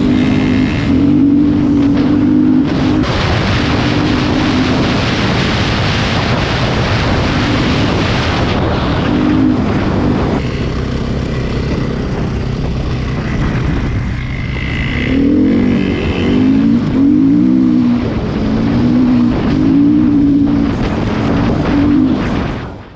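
Single-cylinder four-stroke KTM EXC enduro motorcycle engine revving up and down again and again as it is ridden off-road, with a loud rushing noise over it.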